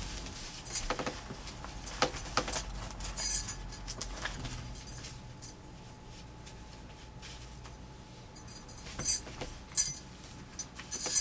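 Scattered light clinks and jangles of small hard objects being handled, in irregular clusters over a low steady room hum.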